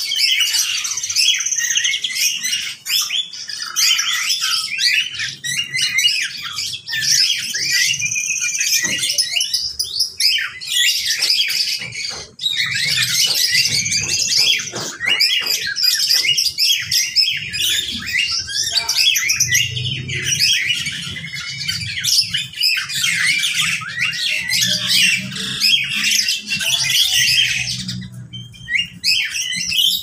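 A crowded aviary of mixed caged birds calling all at once: a dense, unbroken chorus of overlapping chirps and harsh squawks, with a faint low hum underneath.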